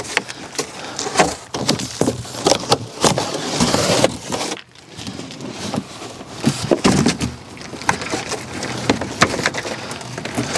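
Large cardboard shipping box being handled, lifted and tipped over: irregular scraping, crinkling and hollow knocks of cardboard throughout.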